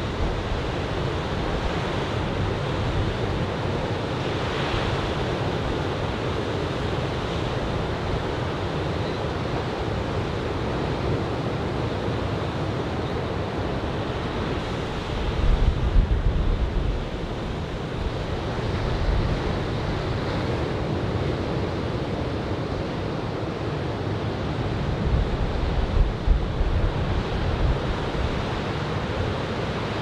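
Ocean surf from a typhoon swell breaking steadily, a continuous wash of waves. Wind buffets the microphone in low rumbling gusts about halfway through and again near the end.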